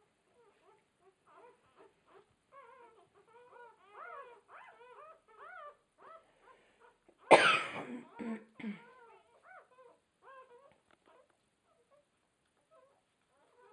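Two-day-old newborn puppies squeaking and whimpering in quick runs of short, rising-and-falling calls, busiest in the first half and thinning out toward the end. About halfway through there is a single louder, sudden noise.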